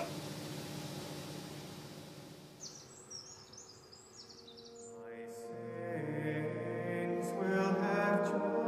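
A steady background hum, then a bird chirping a few times about three seconds in. About five seconds in, sung chant begins and grows louder.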